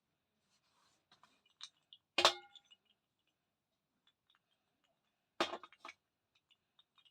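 Thick slate pencil crunched dry: two loud sharp crunches about three seconds apart, the first with a brief ring, with faint small clicks and crackles between.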